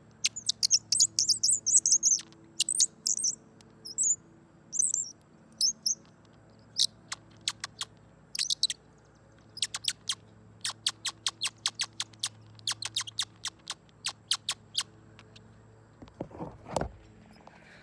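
Twist-knob bird caller squeaking out bird-like chirps. It opens with quick clusters of twittering, then gives a run of short sharp squeaks at about two a second. Near the end comes a brief rustle of handling.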